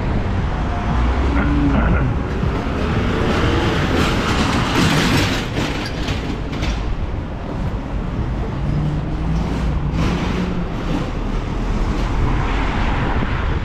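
Busy city road traffic: vehicles passing in a continuous rumble of engines and tyres, swelling louder for a few seconds as heavier traffic goes by.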